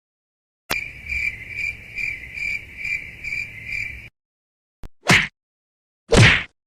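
Cricket chirping sound effect: a steady high trill pulsing about twice a second for about three seconds, then cut off abruptly. After it come a short click and two brief noisy bursts, like quick whooshes.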